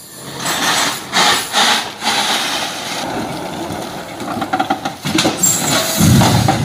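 Loaded logging truck skidding sideways on a dirt road, its diesel engine running under a rough wash of tyre and gravel noise with several loud surges in the first two seconds. A heavy low rumble starts near the end as the load of logs comes off into the brush.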